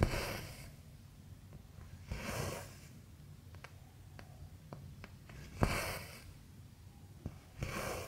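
Cotton embroidery thread pulled through Aida cross-stitch fabric, four short rasping swishes about two seconds apart, with faint ticks of the needle between.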